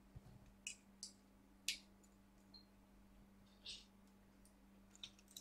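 Near silence with a steady low hum and about half a dozen faint, sharp clicks and taps, the loudest nearly two seconds in, as small wires and parts are handled on a work mat.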